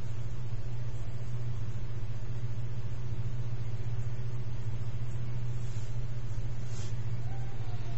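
Steady low hum, an unchanging background drone with no speech.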